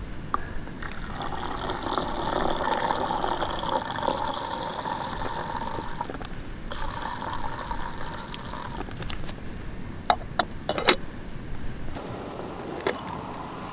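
Milk poured from a carton into a small camping kettle: a steady pour with a short break about two-thirds of the way through. A few sharp clicks and knocks follow near the end.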